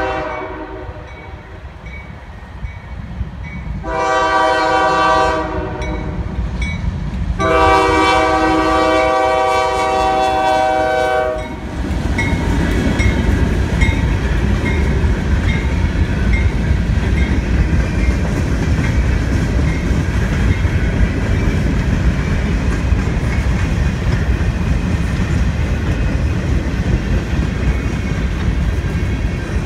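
CSX freight train's diesel locomotive horn sounding a chord of several tones: the tail end of one blast at the start, a short blast about four seconds in and a longer one from about seven to eleven seconds. Then the locomotive and its boxcars roll past close by with a loud, steady rumble of wheels on rail.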